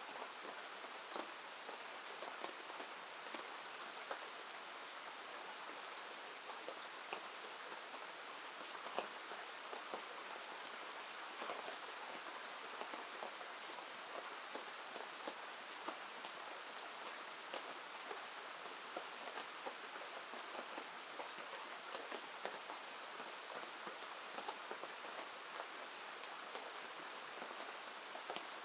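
Steady rain falling, an even hiss scattered with many separate drop ticks and a single louder tick about 9 seconds in.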